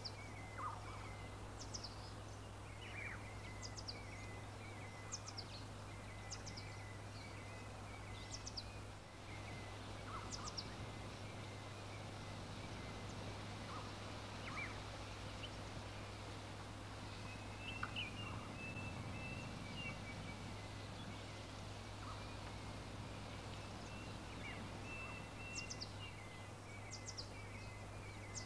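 Outdoor birdsong from small birds: short, high, downward-sliding chirps every second or two and a thin twittering, over a steady low hum.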